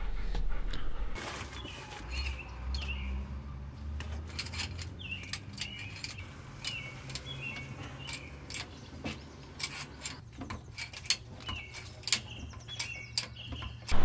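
Small birds chirping, with scattered sharp metallic clicks of a hand wrench being worked on a van's flat rear wheel, over a steady low hum.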